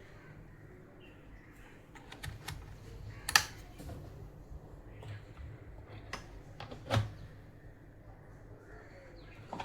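Scattered sharp clicks and knocks of hard objects being handled, the loudest about three and a half seconds in and another around seven seconds, over a low steady hum.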